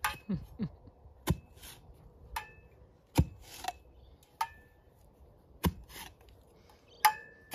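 A metal spade driven repeatedly into hard, compacted soil: about seven sharp strikes at an uneven pace, several with a short metallic ring, between softer scrapes of dirt.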